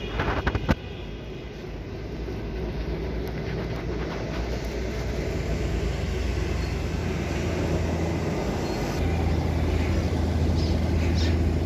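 A steady low mechanical rumble that grows louder about nine seconds in, with a few sharp knocks near the start.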